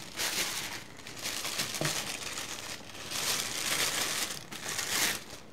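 Clear plastic packaging bag crinkling as it is handled and lifted out of a cardboard box, in several spells of rustling with short pauses between.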